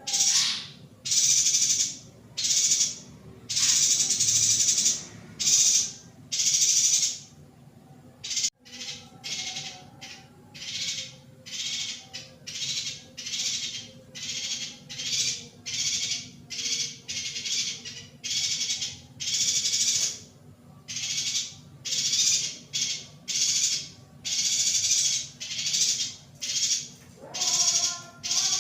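Female yuhina calling over and over in short, buzzy, chattering calls, about one a second, with a brief break about eight seconds in.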